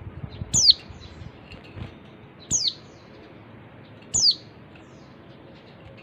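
Female white-eye (pleci) calling: short, high notes that slide sharply downward, three in all, one to two seconds apart, over a faint background hiss. It is the female call that bird keepers play to set male white-eyes singing.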